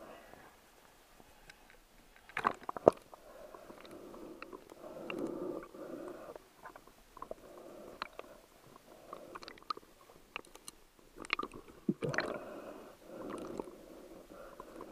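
Muffled underwater water sound picked up through a waterproof camera housing. The burbling swells and fades, with scattered sharp clicks and knocks throughout.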